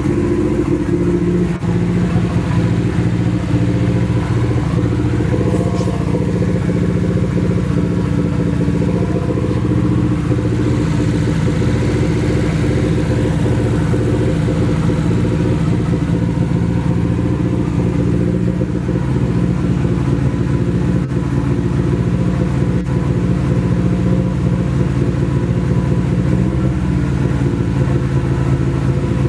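Nissan SR20DET four-cylinder turbo engine running steadily through an open downpipe, freshly started. It sounds like it misfires, which the owners suspect comes from old gas.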